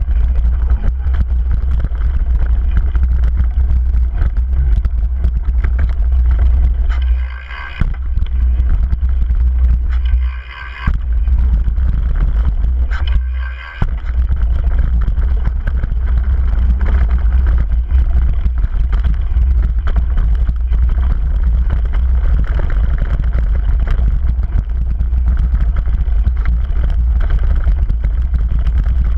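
Wind buffeting the microphone of a camera on a fast-descending mountain bike, mixed with the tyres and bike rattling over a dirt and gravel trail. The low rumble drops out briefly three times, a few seconds apart, between about seven and fourteen seconds in.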